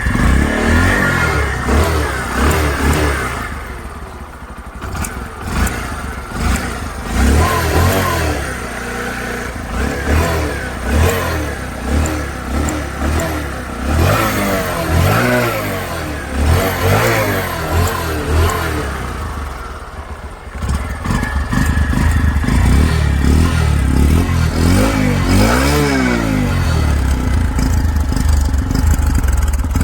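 Bajaj Platina 110 ABS motorcycle's single-cylinder four-stroke engine running through its stock exhaust, which is very quiet. It is revved repeatedly in short blips whose pitch rises and falls, then runs steadier and louder from about two-thirds of the way in.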